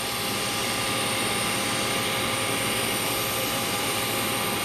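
Steady jet whine from a Boeing 737 airliner on the apron: an even rushing roar with several thin, high, steady tones over it.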